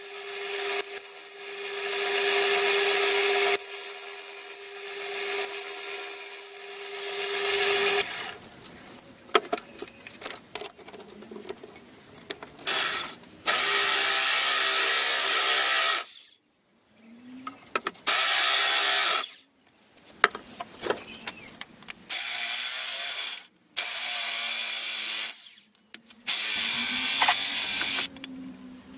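An electric motor runs steadily with a held hum for about the first eight seconds. After that a power drill bores into a metal bar, started and stopped in a series of bursts of two to four seconds each, with clicks and handling between them.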